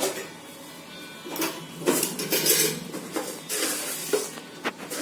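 Spoon clinking and scraping against a cooking pot and container while sugar is spooned into the tea: a few sharp clinks with short ringing and brief scraping rasps in between.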